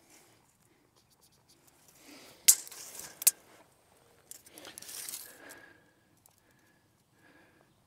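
Retractable steel tape measure: the blade rattles back into its case with two sharp snaps about two and a half and three seconds in, then is drawn out again with a longer rattle.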